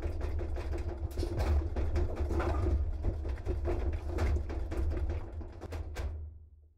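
Simulated earthquake sound effect: a deep continuous rumble with irregular rattling knocks over it, fading out near the end.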